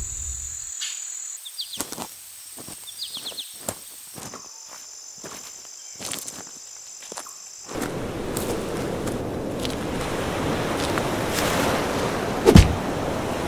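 Insects buzzing in steady high-pitched tones, with scattered footsteps on rocky ground. About eight seconds in, a steady wash of surf and wind takes over, with one short thump near the end.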